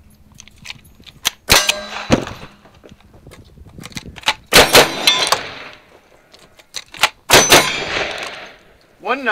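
Gunfire at steel targets, each shot followed by the clang and ring of the steel: two single rifle shots about a second and a half and two seconds in, then a double-barrel shotgun fired in two quick pairs, about four and a half and seven seconds in.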